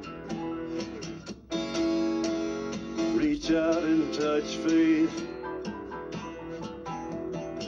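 Background music: strummed acoustic guitar with a steady rhythm, growing fuller and louder for a few seconds in the middle.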